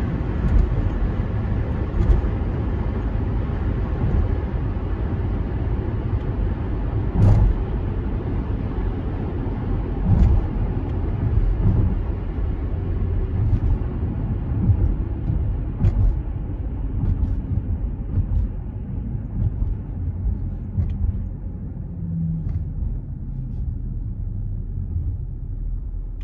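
Cabin noise inside a Range Rover L322 slowing from highway speed to a stop: dense tyre and wind noise that steadily fades as the SUV slows, leaving a low, steady engine hum at idle. A few short knocks come through along the way.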